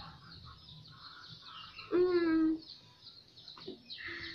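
Birds chirping faintly in the background, with one short vocal sound from a person about two seconds in, held on a steady pitch for about half a second.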